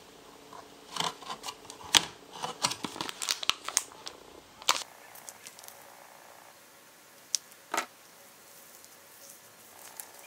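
Soft craft clay being squeezed and pulled apart by hand: a quick run of sticky crackles and clicks for a few seconds, then a pause broken by two faint clicks.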